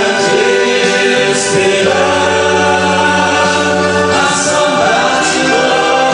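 Male vocal quintet singing gospel in close harmony, amplified through microphones and a PA speaker, holding long sustained chords.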